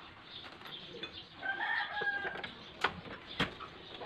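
A bird call, one pitched cry about a second long starting about a second and a half in. Near the end come two sharp metal clicks from hand tools and loose screws.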